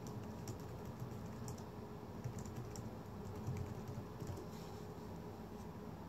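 Brass spinning top spinning on a clear ridged base: a faint steady hum with scattered light, irregular ticks.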